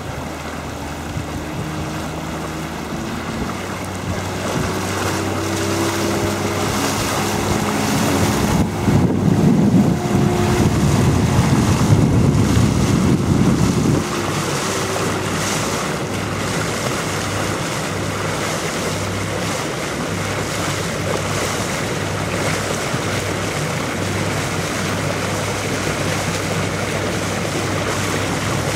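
Motorboat engine running over water, with rushing water and wind buffeting the microphone. The engine gets louder and fuller from about 8 to 14 seconds in, then settles to a steady low hum under the wind and water.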